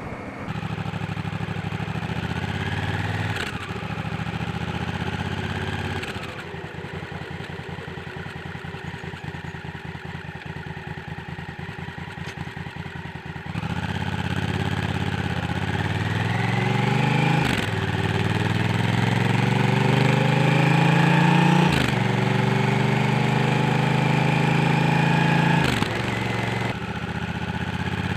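Honda Africa Twin motorcycle's parallel-twin engine and exhaust: running at low revs with an even pulsing beat, then pulling away, its pitch climbing and dropping back at three gear changes in the second half.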